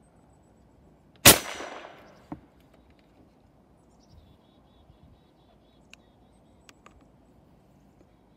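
Compressed-air gumball launcher firing once: a loud, sudden blast with a short, fading rush of air. About a second later comes a fainter, sharp hit.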